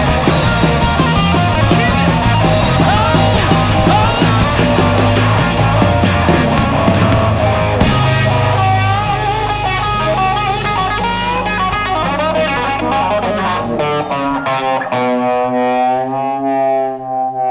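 Rock band playing an instrumental passage live: distorted electric guitar over bass and drums. The band thins out about eight seconds in, and around fifteen seconds in the low end drops away, leaving one long held note that wavers in pitch.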